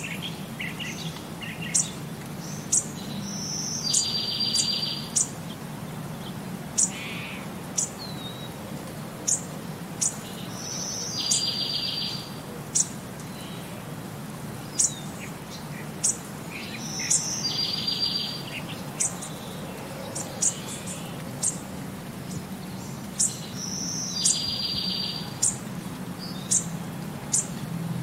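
Birdsong ambience: short high chirps about once a second, and a buzzy trill of about a second that comes back every six to seven seconds, over a low steady hum.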